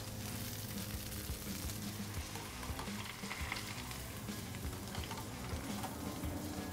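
Breaded shallots deep-frying in oil heated to about 325 degrees: a steady sizzle with small crackles.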